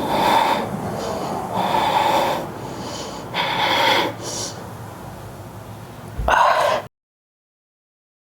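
A woman breathing hard and forcefully through a strained static core hold: several heavy, gasping breaths roughly two seconds apart. Near the end the sound cuts off abruptly to complete silence.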